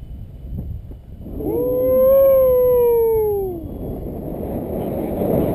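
A man's long whooping yell, about two seconds, that rises and then slides slowly down in pitch, over wind rushing on the microphone.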